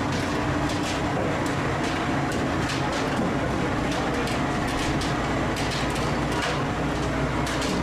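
Cat 6020B hydraulic mining excavator working: a steady heavy machine drone with frequent short, sharp clatters over it.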